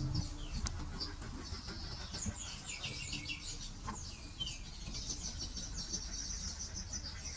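Birds chirping: rapid high-pitched chirps throughout, with a run of falling chirped notes about two to three seconds in.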